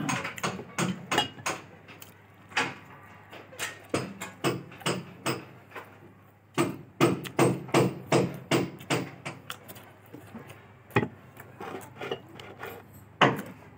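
A series of sharp, irregular knocks or taps, in runs of a few a second broken by short pauses, over a faint steady low hum.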